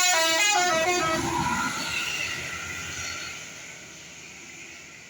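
Bus telolet horn, a multi-tone air horn, playing a quick run of stepping notes that ends about a second in, then the bus passing and its engine and tyre noise fading away.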